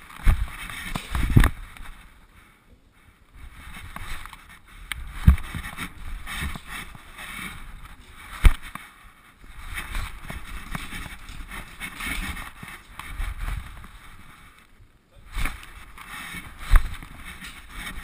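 Rubbing and rustling noise from a GoPro strapped to a dog's back as the dog moves about, with a few sharp knocks from the camera and mount.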